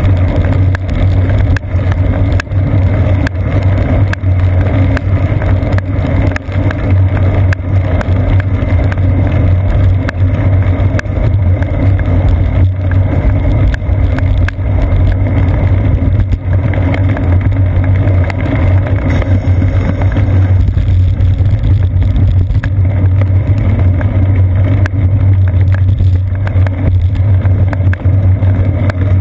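Steady rumble of road vibration and wind picked up through a seat-post-mounted GoPro Hero 2 in its housing, with bicycle tyres on wet pavement and many small clicks and knocks from bumps and raindrops.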